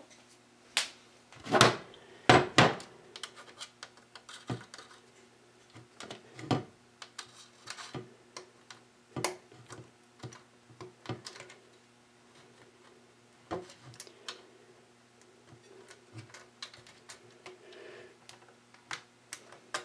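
Plastic parts of an electric meter's housing clicking and knocking as they are handled and fitted back together: a few sharp knocks about two seconds in, then lighter scattered clicks.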